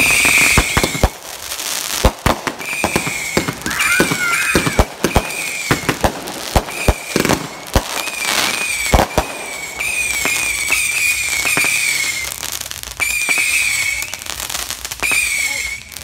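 Fireworks finale: a rapid, irregular series of sharp bangs from aerial shells bursting, mixed with repeated short, high, wavering whistle-like tones.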